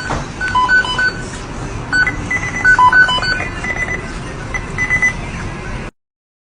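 A tune of short, high beeping notes, like an alarm or ringtone melody, over a busy background. It cuts off suddenly about six seconds in, leaving silence.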